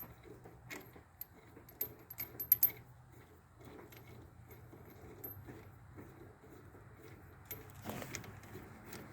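Faint metallic clinks and taps, several sharp ones in the first few seconds and then lighter irregular ticking, from the nut and small steel parts of a sawmill's drive clutch being worked off by hand, over a low steady hum.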